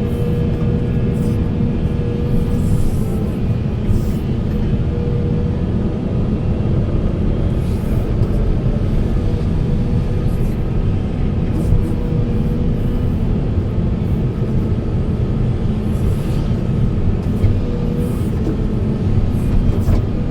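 Heavy hydraulic excavator's diesel engine running steadily under load, with a steady hydraulic whine and a few short knocks from the working machine.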